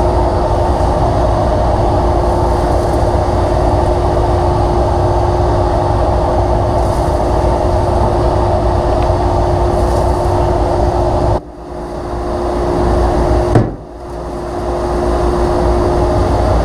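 Dust collector running steadily, pulling air and dust through the table saw cabinet's 6-inch duct, with a steady hum. About eleven seconds in the sound suddenly drops and slowly builds back. A sharp knock follows about two seconds later, then another sudden drop and recovery.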